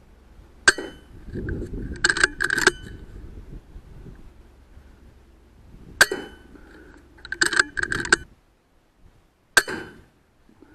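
AGT Uragan 2 .22 PCP air rifle fired three times, each shot a single sharp crack. After the first two shots comes a short run of metallic clicks as the action is cycled to load the next pellet.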